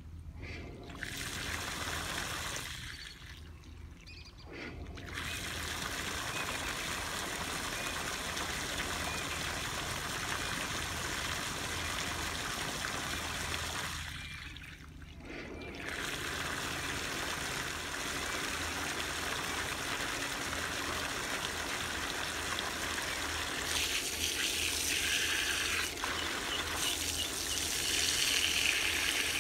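Water jetting from a hose and splashing over the metal tubes of a tractor oil cooler into a puddle, washing it. The flow drops away briefly three times and turns hissier near the end, as the jet is directed by hand across the tubes.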